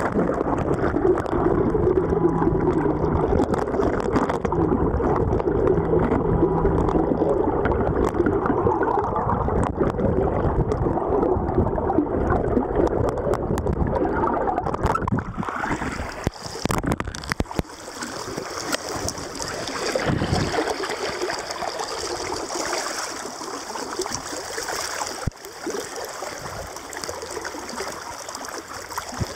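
River water heard through a submerged camera: a muffled, dull water noise with the highs cut off. About halfway through the camera comes up out of the water and the sound opens into splashing, rippling river water in the open air.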